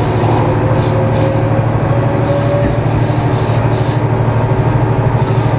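Diesel railcar of the MRT300 series running along the track, its engine droning steadily, with a few short high-pitched wheel squeals on the curve.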